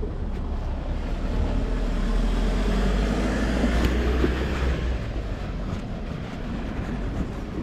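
Street traffic: a motor vehicle passes close, its noise swelling to a peak about halfway through and then easing off, over a steady low rumble.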